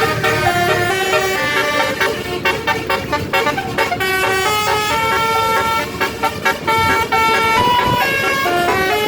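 A bus's Basuri 'telolet' multi-tone horn playing a melody of short, stepped notes without a break.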